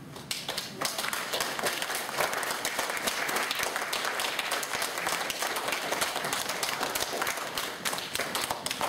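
A congregation applauding, many hands clapping together. It swells up within the first second and then holds steady.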